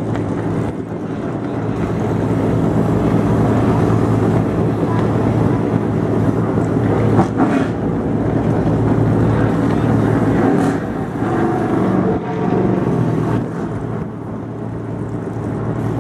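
NASCAR race truck V8 engines idling steadily, a deep even rumble.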